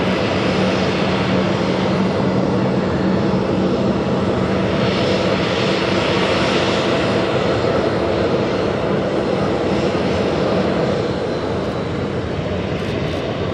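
Boeing 737-800's CFM56-7B jet engines running through final approach and touchdown, a steady rushing roar with a low hum underneath that eases slightly near the end.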